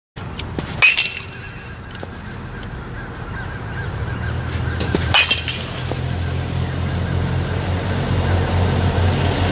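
Baseball bat hitting pitched balls twice, about four seconds apart: sharp cracks, each with a short ring after it. A steady low rumble runs underneath and grows louder.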